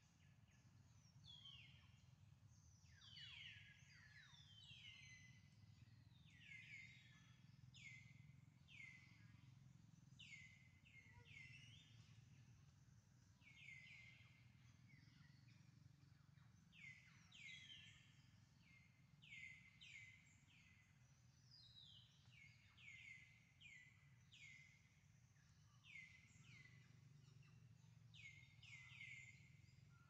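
Faint forest ambience: many short, high, thin chirps that sweep downward, coming in quick runs over a low steady hum.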